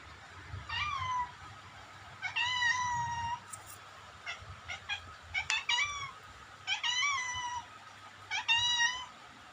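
A frightened cat meowing repeatedly: five drawn-out, high-pitched meows with short chirps between them.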